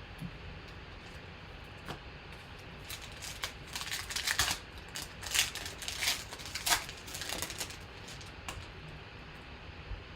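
Trading cards being handled: scattered clicks and a run of crisp, sharp rustles and snaps, busiest in the middle.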